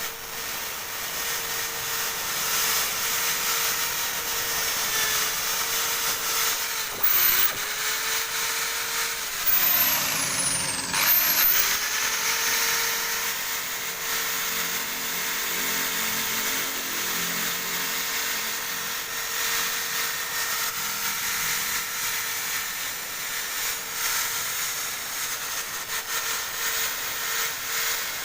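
Electric drill spinning a wire brush against a metal engine block: a steady motor whine under a harsh scraping hiss. The motor's pitch sags briefly several times in the first half as the brush is pressed harder into the metal.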